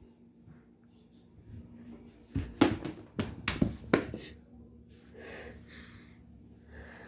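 A quick run of about five sharp thumps, followed by a faint breathy sound.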